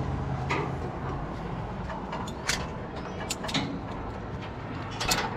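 Steady wind rumble on the microphone with a low hum, broken by a few sharp clicks and knocks.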